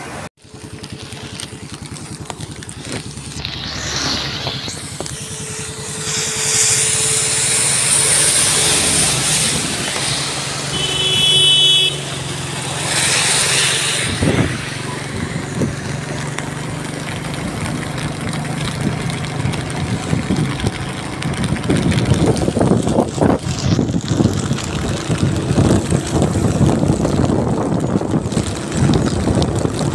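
Small underbone motorcycle running as it is ridden on a wet road in the rain, with tyre hiss on the wet asphalt and rain noise. Wind buffets the microphone, heavier in the second half.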